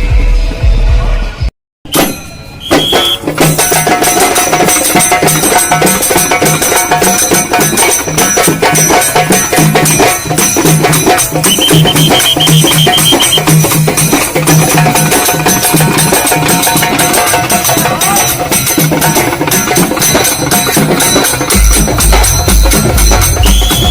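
Halgi frame drums beaten with sticks in a fast, driving, even rhythm, loud and dense, after a brief break about two seconds in.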